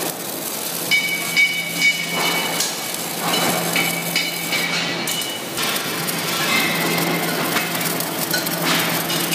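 Automatic arc welder welding the foot ring onto a steel gas cylinder as it turns: a crackling arc with a steady machine hum, and a few sharp knocks in the first two seconds.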